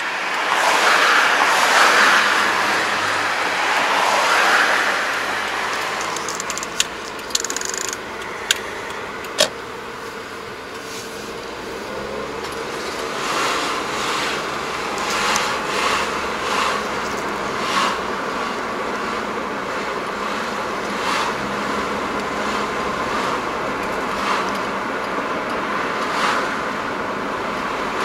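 Car on the move, heard from inside the cabin: steady road and tyre noise with louder swells early on. A few sharp clicks come a few seconds in, and short swells of tyre noise recur in the second half.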